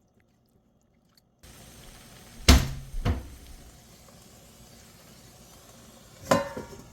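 Kitchen clunks: two heavy knocks about two and a half and three seconds in and a ringing knock near the end, over a faint steady hiss that starts after a second of silence.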